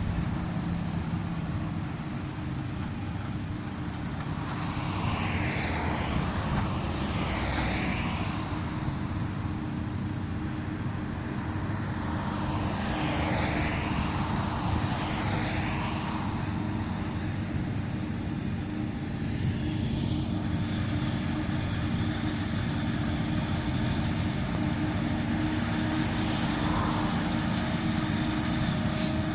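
Diesel truck hauling a loaded silage trailer driving past, its engine and tyres making a steady heavy rumble that swells and fades twice in the first half. After that comes the steady drone of forage-harvesting machinery working in a maize field.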